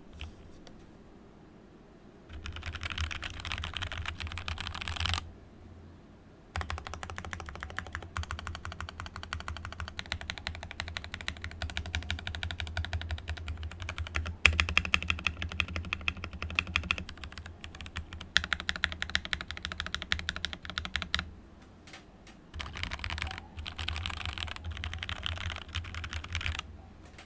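Steady typing on a plateless BM60 60% mechanical keyboard fitted with JWK Lavender linear switches (full nylon housing, POM stem, 65 g springs) and clear keycaps. Dense runs of key clicks come in bursts with short pauses about two seconds in, around six seconds in and about twenty-two seconds in, with a few louder single keystrokes along the way.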